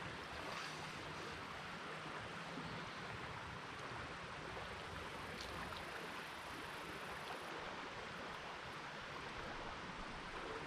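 Steady, faint rush of flowing river water moving past a kayak, with a faint tick about five seconds in.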